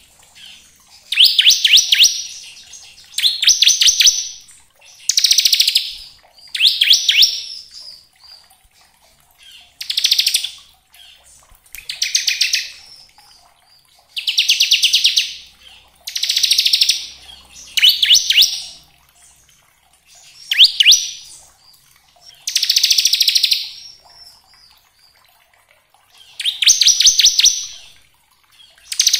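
Ciblek (bar-winged prinia) singing its 'ngebren' song: loud, high-pitched bursts of very fast repeated notes, each lasting about a second, repeated every two seconds or so.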